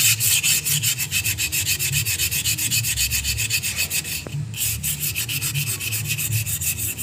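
Sandpaper rubbed by hand around the inside of a Honda Jazz rear brake drum in rapid back-and-forth strokes, cleaning the drum's braking surface; the strokes pause briefly about four seconds in.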